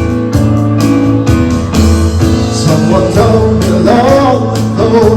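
Music: a rock band playing a steady mid-tempo groove with bass and guitar, and a voice starting to sing about halfway through.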